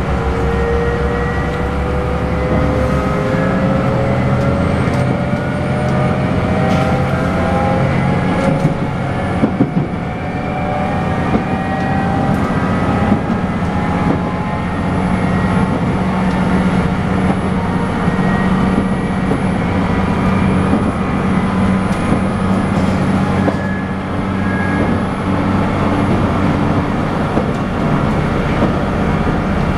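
Running sound inside the saloon of a JR Shikoku N2000 series diesel railcar: a steady drone of engine and wheels on rail. A whine rises in pitch over the first ten seconds or so as the train gathers speed, and a few sharp knocks come near the middle.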